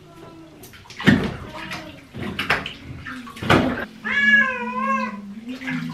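A sphynx cat meowing once in a long, wavering cry of about a second near the end, unhappy at being put in the bath. Before it, bathwater splashes a few times as the cat is lowered in.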